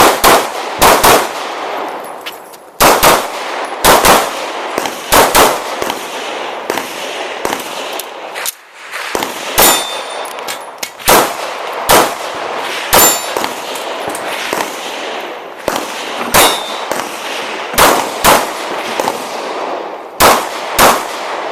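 Pistol fired in quick pairs and short strings, around thirty shots with gaps of a second or so between strings, each shot trailing off in echo. A few hits on steel targets ring with a brief high metallic ding.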